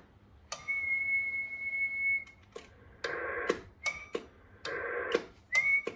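CB radio and Zetagi B300P linear amplifier being keyed on and off on sideband: sharp relay clicks at each switch, with short bursts of narrow-band receiver hiss from the radio's speaker in between. About half a second in a steady high whistle starts and lasts over a second. The amplifier's relay switches promptly, with the slow sideband delay cured by a new capacitor.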